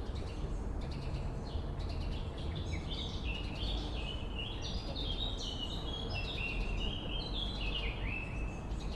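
Swallows twittering: a few scattered chirps, then from about two and a half seconds in a long run of quick chattering notes that lasts until near the end, over a steady low background rumble.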